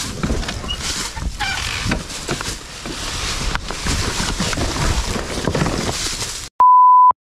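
Irregular rough noise, then near the end the sound cuts out and a steady 1 kHz beep tone plays for about half a second: a censor bleep over a swear word.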